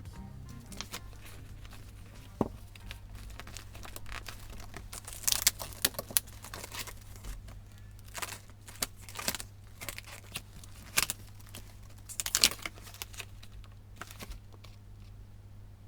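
Paper and plastic rustling, with small clicks and taps from stationery being handled at a desk, sped up. It comes in irregular bursts, busiest about five seconds in and again about twelve seconds in, over a steady low hum.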